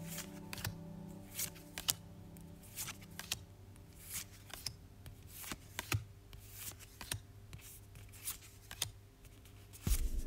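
Yu-Gi-Oh trading cards being slid one at a time from the front of a small hand-held stack to the back: an irregular run of short, crisp card flicks and slides, over soft background music. Near the end a louder low rumble comes in.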